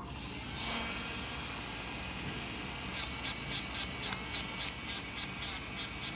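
Slow-speed dental contra-angle handpiece spinning up and running with a steady high whine, driving a Sof-Lex finishing disc. From about three seconds in, the disc is stroked against the composite on a front tooth, adding quick regular scratchy contacts several times a second.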